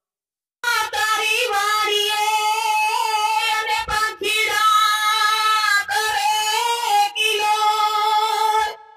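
A song sung by a high-pitched voice in long held, gliding notes, starting after a brief silence about half a second in. It breaks off briefly a few times and again just before the end.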